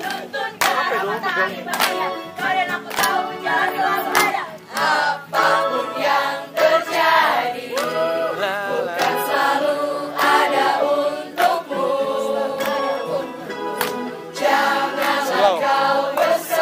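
A choir singing together in a group, with scattered handclaps that are thickest in the first few seconds.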